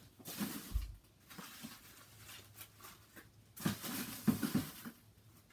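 Scooter packaging being handled and cleared away: irregular rustling, with a low thump just under a second in and a louder spell of rustling and small knocks a little before four seconds.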